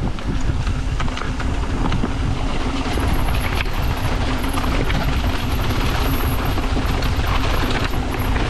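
Yeti SB150 mountain bike riding fast down a dirt trail: a steady rumble of wind and tyres on the camera's microphone, with many small knocks and rattles from the bike over the ground, and a faint high whine joining about three seconds in.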